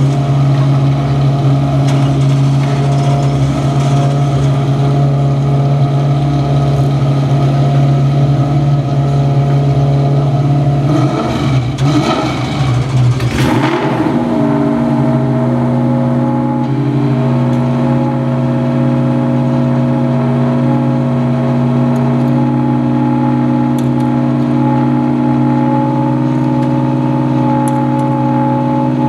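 BMW Z4 GT3 race car's V8 idling steadily, with a brief rev about halfway through, after which the idle settles on a different note.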